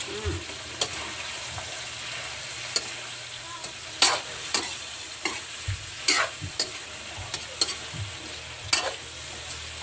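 Shrimp frying in oyster sauce in a metal wok, a steady sizzle under a metal spoon stirring, scraping and clinking against the pan at irregular intervals.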